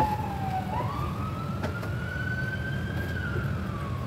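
An emergency vehicle's siren wailing slowly: its pitch slides down, rises again from just under a second in for about two seconds, then starts falling near the end. A steady low rumble runs underneath.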